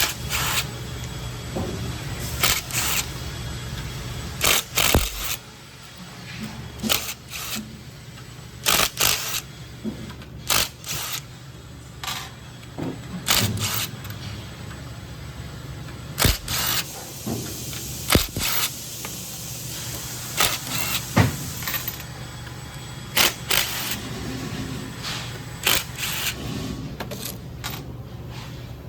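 Wrench work on the bolts of a hydroseeder gear pump, with irregular metal clicks, clinks and knocks of tools and loose bolts, over a low steady hum that drops about five seconds in.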